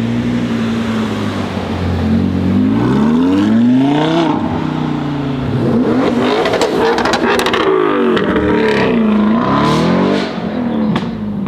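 Audi R8 V10 Performance's V10 engine through a loud aftermarket exhaust, running steadily and then revving up about two and a half seconds in. A rapid run of crackles and pops comes around seven seconds, followed by several quick falls and rises in pitch near the end.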